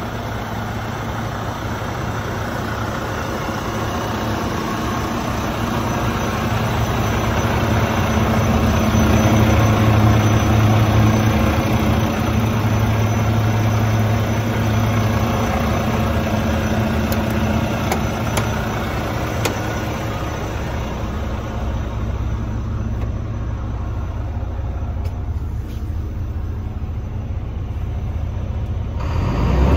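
Volvo FM 300 garbage truck's diesel engine idling with a steady low hum. It grows louder for a while, then turns muffled near the end as heard from inside the cab.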